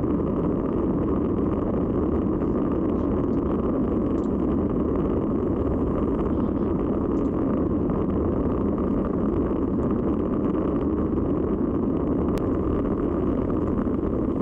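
Steady rush of wind buffeting the microphone of a camera on a road bicycle riding at race speed, with no pitch or rhythm to it.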